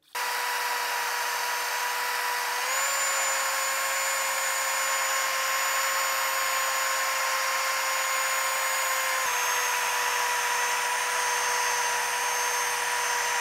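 Cordless drill spinning a hook-and-loop sanding disc of 180-grit paper against an aluminum motorcycle silencer, wet-sanding out a deep gouge with spray lubricant: a steady motor whine over a hissing scrape. The whine steps up slightly in pitch about three seconds in and drops back about nine seconds in.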